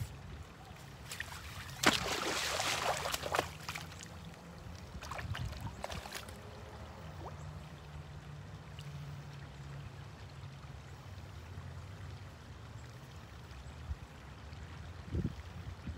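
A fishing magnet on a rope is thrown and splashes into shallow ditch water about two seconds in, a sharp hit followed by a second of splashing. A few softer splashes follow a few seconds later as the rope settles and is drawn through the water.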